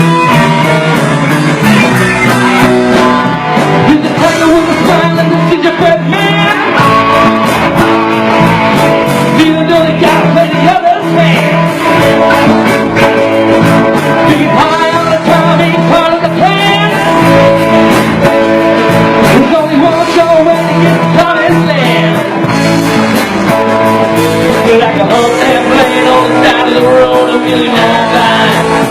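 Live rock band playing, with guitar to the fore and singing.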